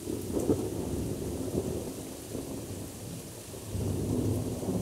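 Thunder rumbling from a thunderstorm, swelling up with a couple of cracks in the first two seconds, easing, then rolling up again near the end.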